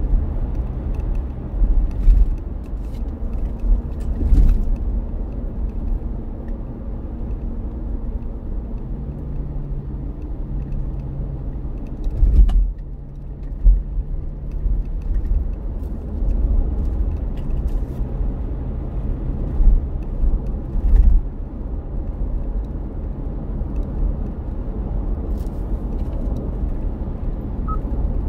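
Car interior noise while driving at a steady speed: a low rumble of engine and tyres on the road with a steady hum, broken by a few low thumps.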